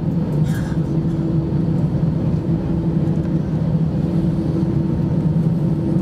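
Steady engine hum and low rumble of an Airbus A320-214's CFM56 engines at low thrust, heard inside the cabin over the wing as the jet taxis slowly onto the runway.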